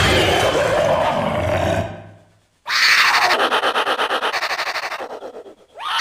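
Sound-designed monster roars. The first fades out about two seconds in. After a short gap a second roar with a rapid fluttering rattle starts and fades away, and a third begins right at the end.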